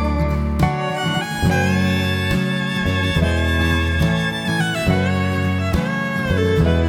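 Music: a bowed fiddle melody with guitar accompaniment over a steady bass line.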